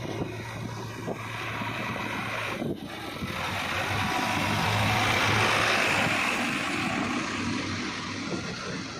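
Diesel engines of heavy earth-moving machinery running steadily, with a rushing noise that builds and grows louder toward the middle, then eases off.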